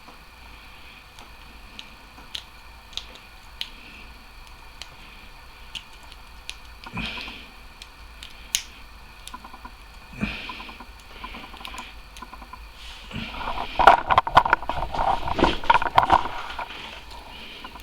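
A rake lock pick and tension wrench working inside a padlock's keyway: scattered light metallic clicks and short scrapes, then a dense run of rapid clicking and scraping in the last few seconds as the pick is raked up and down over the pins.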